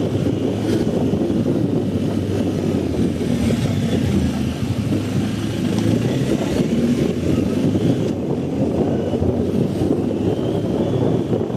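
BMW R 1250 GS boxer-twin motorcycle engine running steadily while being ridden off-road, a dense low rumble that holds an even level throughout.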